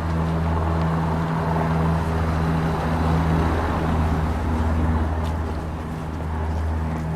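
A motor vehicle engine running steadily: a low, even hum with a rushing noise over it.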